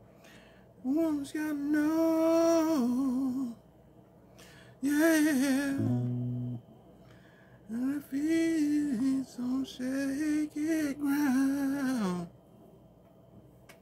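A man singing long held notes with a wavering vibrato, in four phrases with pauses between them. A short low tone sounds about six seconds in.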